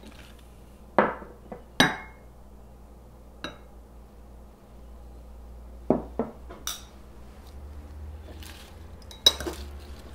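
Glass and ceramic bowls clinking and knocking as they are handled and set down on a wooden board: a series of sharp, separate clinks, with kitchen tongs clicking against the bowl near the end.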